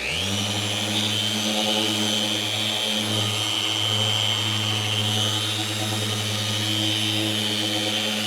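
Handheld electric power tool starting up and running steadily at full speed: a low motor hum with a high, even whine.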